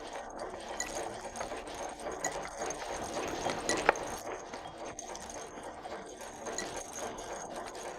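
Small workshop machines, driven through a transmission from one electric motor, running with a steady mechanical rattle and scattered metal clicks. A single sharp metallic knock comes about four seconds in.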